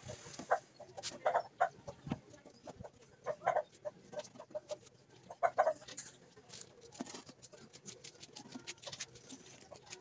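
Chickens clucking in short, scattered calls, with light clicks and taps between them.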